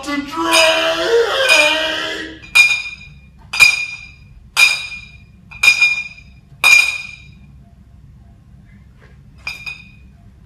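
Glass clinking: five bright, ringing tings about a second apart, all at the same pitch, then a softer double clink near the end.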